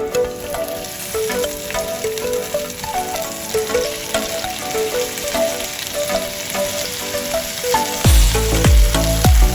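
Bacon-wrapped enoki mushrooms sizzling as they fry, under background music with a light melody. A heavy kick-drum beat comes in near the end.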